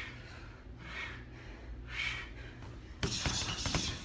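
Hard exhaled breaths about once a second during floor leg lifts, then near the end a quick run of thuds from boxing gloves punching a heavy bag.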